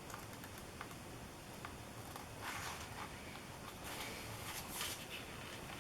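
Plastic stencils being handled: a few faint clicks, then soft rustling from about halfway through.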